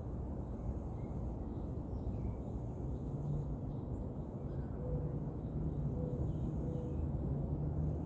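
Outdoor ambience: a very high-pitched insect buzz that starts and stops in stretches of a second or two, a few faint bird chirps, and a steady low rumble underneath.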